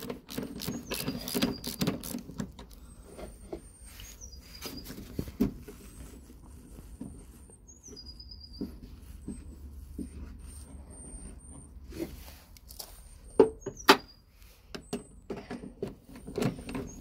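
A socket ratchet clicking as it undoes a headlight mounting bolt, densely for the first two seconds, then scattered taps and knocks of metal and plastic parts being handled, with two sharp knocks a little before the end. A small bird chirps short high calls again and again in the background.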